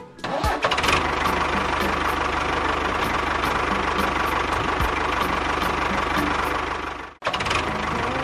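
A small motor running steadily with a fast, even mechanical rhythm. It cuts out briefly about seven seconds in and then resumes.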